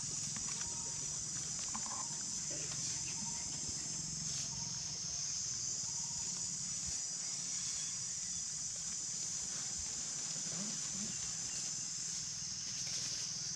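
Steady high-pitched drone of an insect chorus, with a low steady hum underneath.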